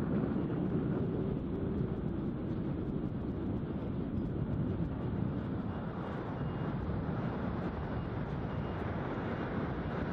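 Steady low rumble of surf breaking along the beach, with wind on the microphone.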